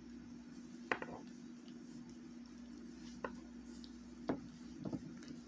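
Faint handling sounds of crocheting with a metal hook: a few short, sharp clicks spaced irregularly over a steady low hum.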